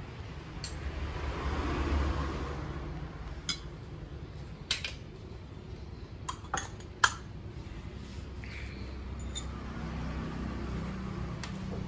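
Stainless-steel bowls, plates and utensils clinking and knocking as they are handled, about eight separate clinks with the sharpest about seven seconds in, over a low steady rumble.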